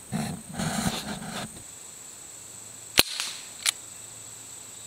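Crosman 1077 semi-automatic CO2 pellet rifle firing: a single sharp pop about three seconds in, followed by a fainter crack about half a second later, after a second and a half of rustling. The CO2 cartridge is running low.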